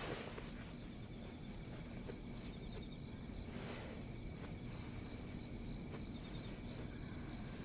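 Faint cricket chirping: short high chirps at about four a second, in runs broken by brief pauses, over a low steady background hiss.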